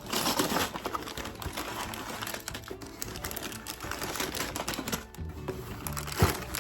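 Background music over rapid clicking and rattling of plastic building bricks being handled and snapped together.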